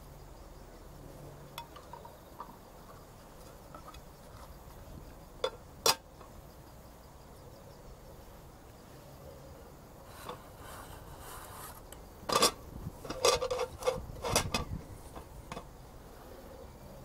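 Camp cookware and utensils clinking and knocking: two sharp clicks about six seconds in, then a cluster of louder knocks and scrapes near the end.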